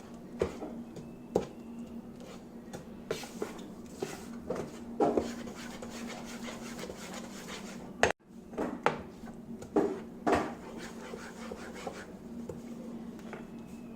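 A spoon stirring and scraping through ground moong dal batter in a bowl, with irregular knocks of the spoon against the bowl's side, a few of them louder. A steady low hum runs underneath.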